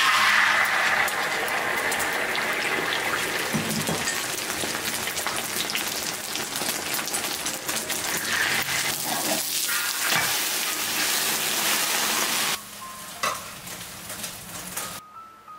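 Beaten egg frying in hot oil in a wok, sizzling loudly and steadily, with the occasional scrape of a metal spatula. The sizzling starts suddenly and cuts off about twelve and a half seconds in, leaving soft background music.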